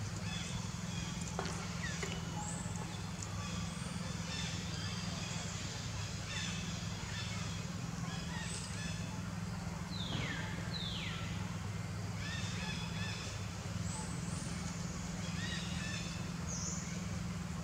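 Scattered short, high chirping animal calls in forest, with two falling whistled calls about ten seconds in, over a steady low hum.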